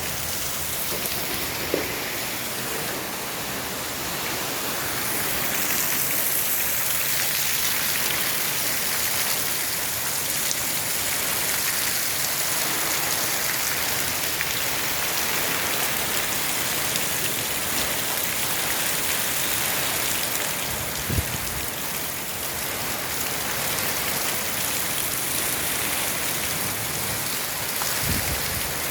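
Heavy rain pouring steadily, an even hiss of rain hitting surfaces, with a few brief low thumps.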